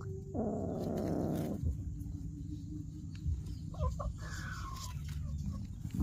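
Domestic animal calls: a harsh call lasting a little over a second shortly after the start, then a few short calls and a brief falling call about four seconds in.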